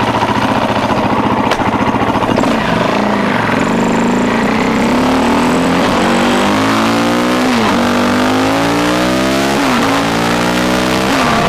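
KTM 450 EXC-R single-cylinder four-stroke dirt bike engine pulling away from low revs at about two and a half seconds in. The engine note climbs and drops back three times as the rider shifts up through the gears.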